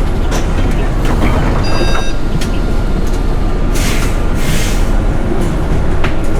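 City bus in motion, heard from inside: a steady low rumble of engine and road. A short electronic beep comes about two seconds in, and a burst of hiss about four seconds in.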